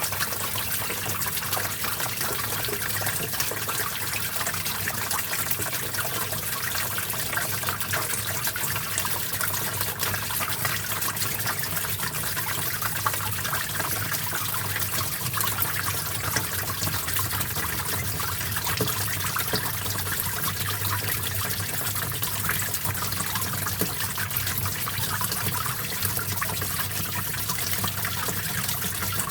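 Small stream of water trickling and babbling steadily over rocks.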